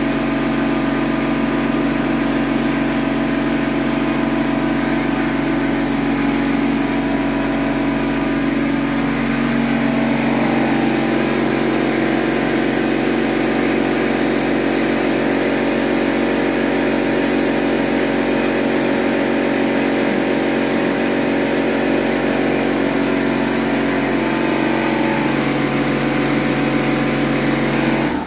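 A motor running with a steady, even hum, which cuts off suddenly at the end; the motor is said to have burned out.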